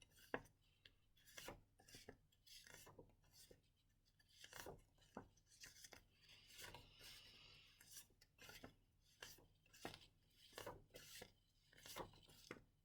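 Near silence, with faint scattered clicks and rubbing sounds.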